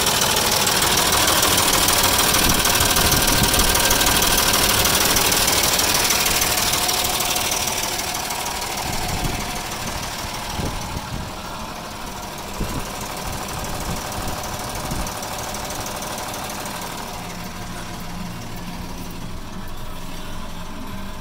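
Dodge Dakota engine running with a heavy, rapid knock, loud up close and then fainter from about eight seconds in. Coolant has mixed into the oil, which the owner puts down to a failed head gasket or a cracked head or block.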